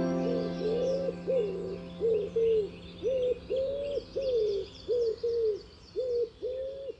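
Pigeons cooing: a run of short, low hooting notes, about two a second, with small birds chirping faintly higher up.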